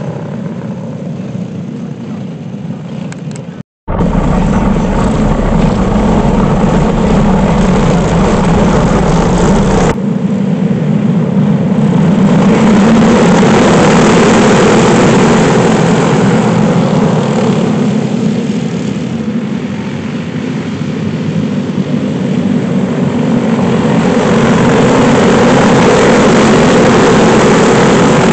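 A pack of dirt-track racing go-karts running at speed. The engine noise swells loud and fades as the karts go past, twice over. There is a moment of silence near the start where the recording cuts.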